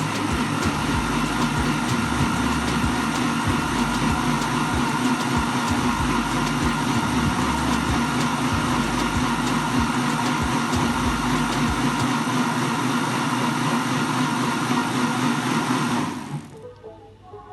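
Electric blender running steadily as it purées spinach leaves in hot water, then switching off about sixteen seconds in.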